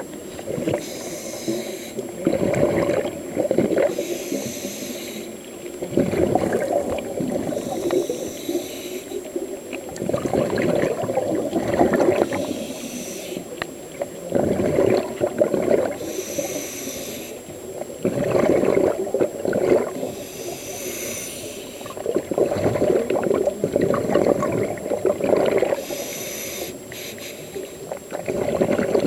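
Scuba regulator breathing underwater: a short hiss on each inhale, then a gush of exhaled bubbles, repeating about every four seconds.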